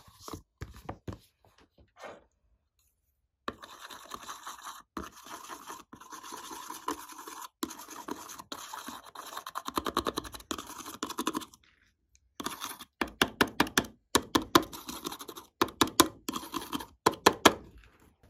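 A pen tip scraping pressed glitter eyeshadow out of a palette pan: a continuous scratching, then a run of quicker, louder scraping strokes near the end.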